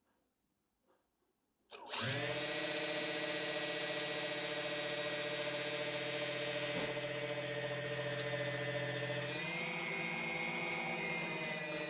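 DJI 2212/920kv brushless motors on an F450 quadcopter starting suddenly after near silence, then running steadily with a whine over a low knocking noise. The pitch shifts about nine and a half seconds in.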